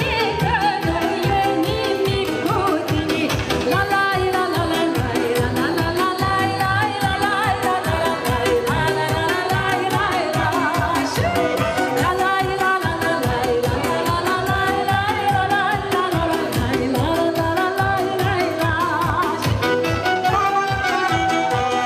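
Live band playing lively Romanian folk dance music for a circle dance: a singer over keyboard and a steady, fast, driving beat.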